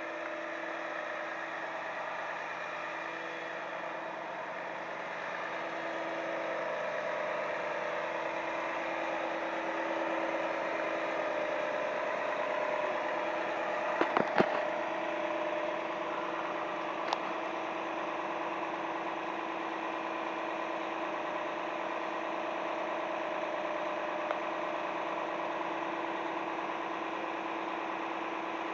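Diesel engine of a Volvo FM high-reach fire truck running steadily while its aerial boom is up. About halfway through comes a short cluster of sharp clicks, with one more click a few seconds later.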